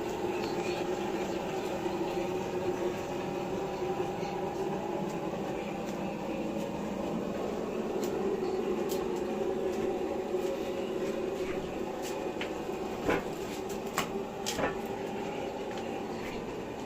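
Steady mechanical hum, with a few sharp clicks or knocks about three-quarters of the way through.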